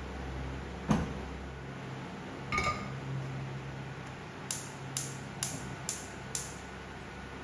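A dull knock, then a steel wok set down with a ringing clank on the gas hob's grate, followed by the hob's spark igniter clicking five times, about two a second, as the burner is lit.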